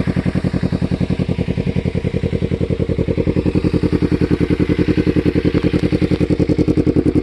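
Kawasaki Ninja 300 parallel-twin engine idling steadily through a cheap aftermarket slip-on muffler, with an even, rapid exhaust pulse that holds a constant pitch.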